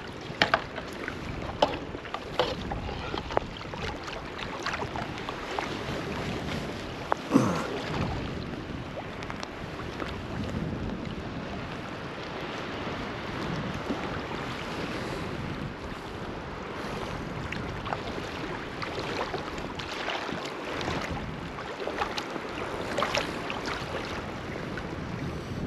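Wind buffeting the microphone over the wash of lake waves, with several sharp knocks in the first eight seconds.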